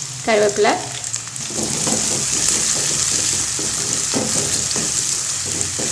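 Chopped onions and curry leaves sizzling in hot oil in an aluminium kadai, with a steady hiss, while a wooden spatula stirs them with light scraping strokes from about a second and a half in.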